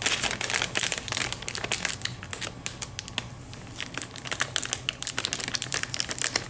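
Cat clawing at a corrugated cardboard scratcher: a rapid, uneven run of dry scratches.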